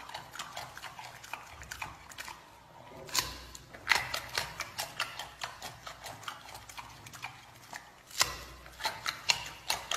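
Giant panda chewing a raw carrot: crisp, wet crunches in quick bouts, with sharp loud bites about three seconds in, about four seconds in and about eight seconds in, and a quieter stretch between.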